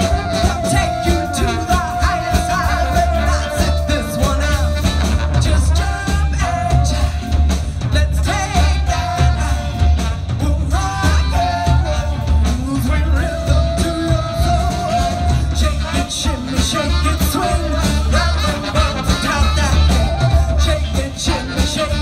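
Live band music: a woman singing over drums, electric guitar, flute, trombone and saxophone, with a steady low beat.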